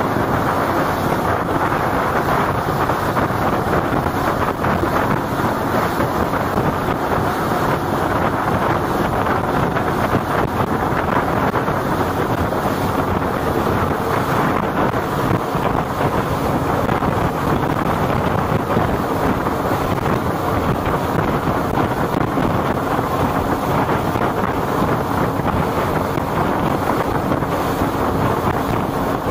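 Passenger boat under way: its engine drones steadily beneath constant wind buffeting the microphone, with water rushing past.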